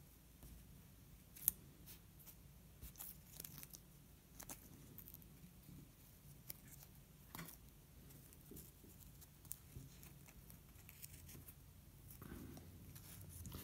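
Faint handling sounds of tape being worked around the base of a feather: scattered small clicks, crinkles and rustles as the loop and fluffy plumes are pressed and taped in place, one slightly sharper click about a second and a half in.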